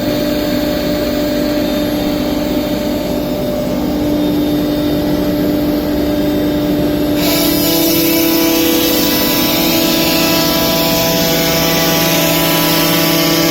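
4-axis CNC router milling a curved furniture facade: the spindle runs with a steady whine, and about seven seconds in a louder, hissier cutting noise joins it.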